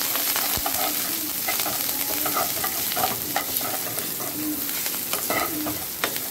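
Green chillies and curry leaves sizzling in hot oil in a coated kadai, stirred with a steel ladle that scrapes along the pan, with short squeaky scrapes over a steady sizzle. This is the tempering stage of a sambar.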